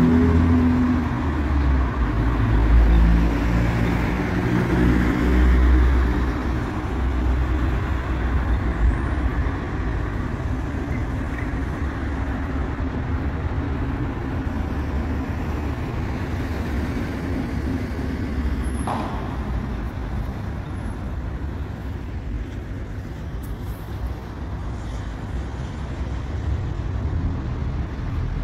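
Street traffic: motor vehicles passing with a low engine rumble, loudest in the first few seconds, then settling into a steady traffic hum.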